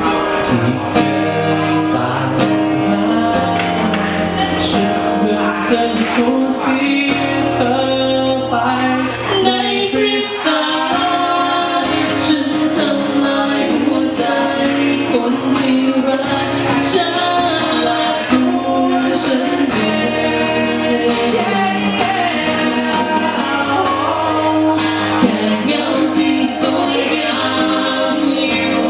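A band playing a song with a lead vocal over a steady beat.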